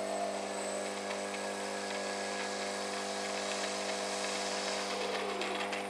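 RC model airplane's electric motor and propeller running at a steady speed: an even, unchanging motor whine.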